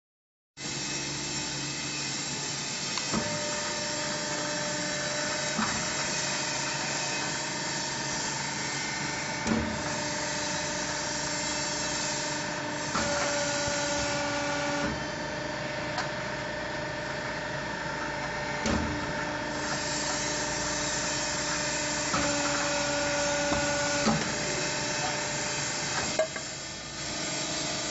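Hydraulic pipe end forming machine running: its pump motor hums steadily, with sharp knocks several times as the clamp and forming cylinders move. Twice a higher whine comes in for about two seconds while the die presses onto the tube end to shrink it.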